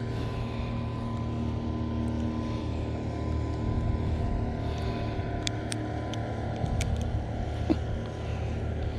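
A motorboat's engine running at a steady pitch, with a few faint ticks partway through.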